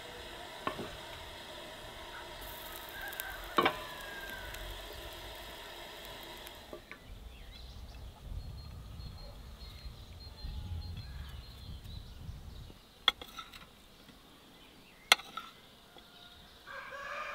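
Farmyard poultry calling in the background, with a few sharp clicks scattered through.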